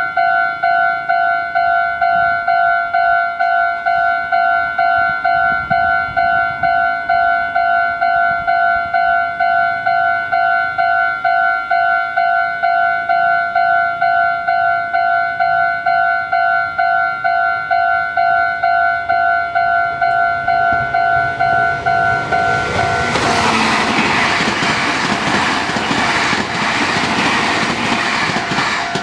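Level crossing warning bell ringing at a steady beat of about two strikes a second. About 22 seconds in, a Meitetsu limited express made up of 1800-series and 1200-series cars passes over the crossing, its wheel and rail noise growing loud over the bell.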